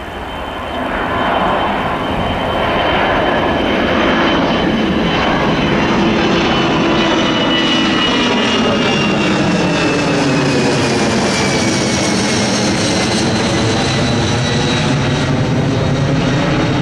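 Boeing 757 jetliner climbing out overhead after takeoff, engines at climb power. The jet noise builds over the first couple of seconds, then holds loud and steady, with a high engine whine that slowly drops in pitch as the aircraft passes and moves away.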